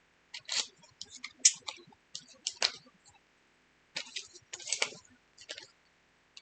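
Cosmetics packaging being handled and opened by hand: an irregular run of small clicks, ticks and crinkles as the lip oil's box and wrapping come apart.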